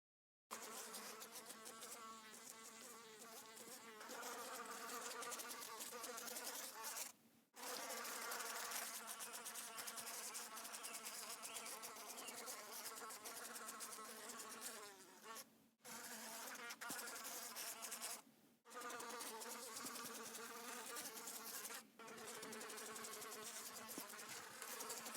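Several common house flies buzzing at a window. The buzz starts about half a second in and wavers in pitch as they fly. It is broken by a few short drops.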